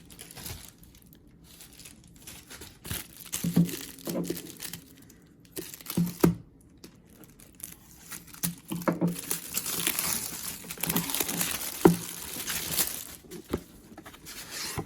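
Mailing envelope and its packaging being torn open and crinkled by hand, in irregular bursts of rustling with a few light knocks from handling.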